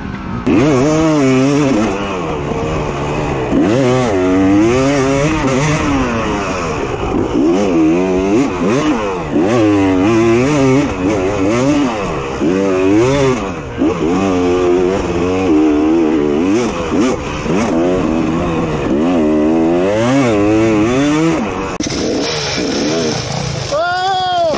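Dirt bike engine revving up and down again and again as the throttle is opened and closed along the trail, with one sharp rev near the end.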